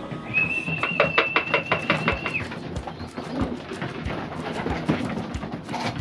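Racing pigeons cooing in the loft, under music that has a held high tone and a steady beat for the first two seconds or so.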